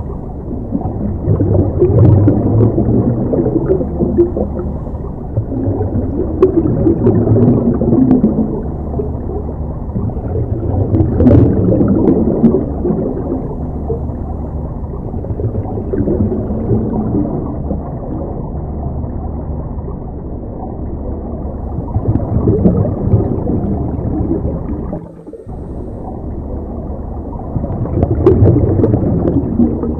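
Scuba diver's exhaled regulator bubbles gurgling and rumbling underwater, swelling and easing every five seconds or so, with a few sharp clicks.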